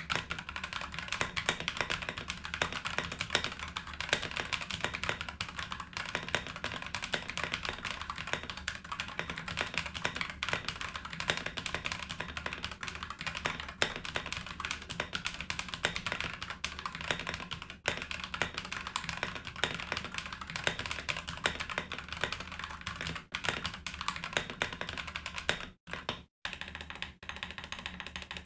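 Typing on an Akko 5087B Plus mechanical keyboard with Akko CS Silver linear switches and PBT double-shot ASA-profile keycaps, in stock, out-of-the-box condition. It is a dense, continuous run of keystrokes, with a few short pauses near the end.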